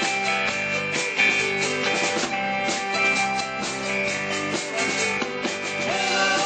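A live rock and roll band playing an instrumental passage without vocals, with guitar over a steady drum beat.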